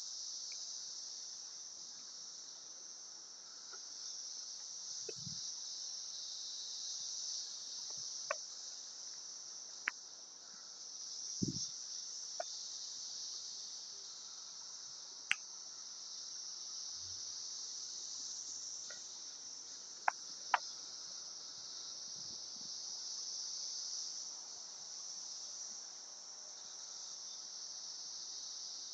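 Chorus of 17-year periodical cicadas (Brood X) as a steady high-pitched drone that slowly swells and eases. A few sharp clicks and a couple of low thumps are scattered through it.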